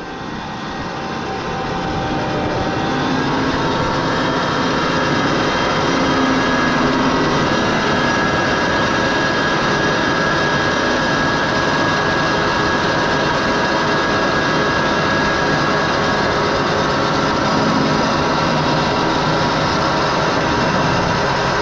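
Large tractor running steadily under load while pulling a planter across the field, heard close at the rear hitch. The sound fades in over the first few seconds, then holds level.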